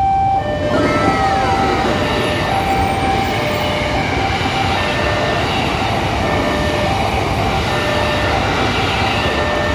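Railway level-crossing alarm sounding its two-note warning, stepping between a higher and a lower note about every three-quarters of a second. About half a second in, a train passing over the crossing adds a loud, steady rumble of wheels on rails that largely covers the alarm.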